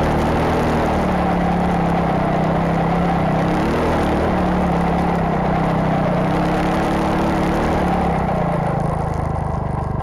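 A 250 cc enduro motorcycle engine working hard as its Impersled snowbike conversion drives through deep snow. The engine's pitch rises and dips a few times over the churning noise of the Talon 38 track and the snow. It eases off slightly near the end.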